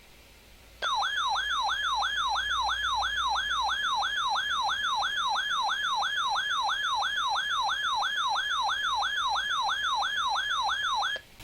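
Weather alert radio's siren alarm: an electronic tone that warbles rapidly, about three swoops a second, starting about a second in and cutting off just before the end. It signals an incoming weather warning.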